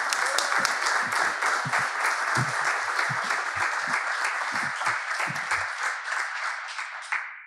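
A small audience applauding steadily after a speech, the clapping stopping just before the end.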